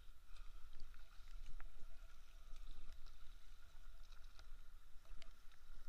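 Kayak paddling: paddle blades dipping and water splashing and trickling off the blades and along the hull, with scattered small drips and ticks. A steady low rumble sits underneath on the bow-mounted camera's microphone.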